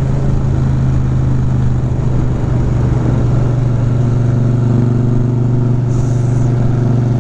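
V-twin motorcycle engine running steadily at cruising speed, heard from the rider's seat with wind noise rushing past.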